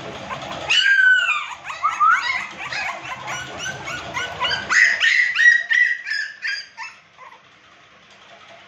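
American Pit Bull Terrier puppies whining and yelping in a quick run of short, high cries, dying down near the end.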